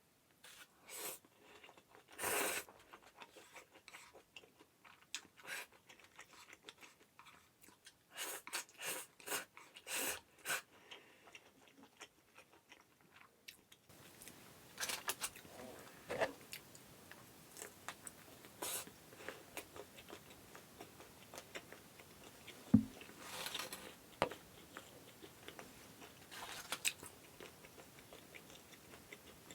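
Close-up eating sounds: a person biting and chewing crunchy food, with clusters of crisp crunches and wet chewing. A faint steady hiss comes in about halfway, and one dull knock comes about three-quarters of the way through.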